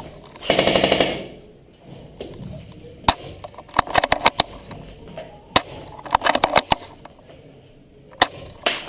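Airsoft guns firing: a rapid full-auto burst about half a second in, lasting just under a second, then scattered single shots and short bursts through the rest.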